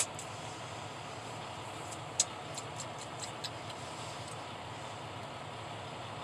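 Steady low hum of an engine idling, heard from inside the vehicle's cab, with a short run of about six light clicks a little over two seconds in.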